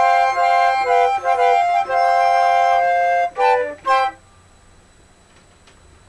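Four layered concert flute parts play held chords together, then two short detached chords, the music cutting off about four seconds in.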